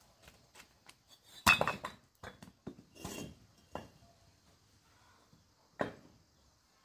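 Clatter of hard objects being handled: about six sharp knocks and clinks, the loudest about one and a half seconds in and the last near the end.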